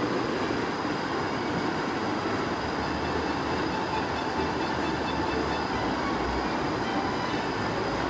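Fast stream rapids: water rushing and splashing over boulders in a steady, unbroken rush.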